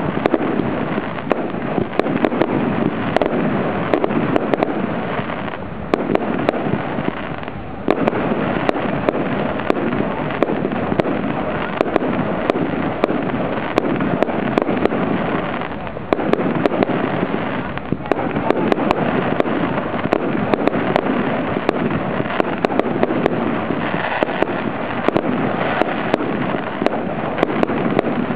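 Fireworks display: a dense, continuous barrage of aerial shells bursting, with many sharp bangs and pops one after another. The barrage eases briefly a few times, about six, eight, sixteen and eighteen seconds in.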